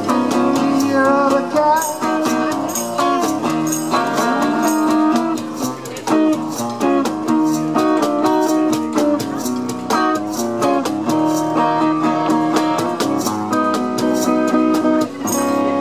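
Acoustic guitar playing an instrumental passage: a picked melody over chords, with a steady, even beat.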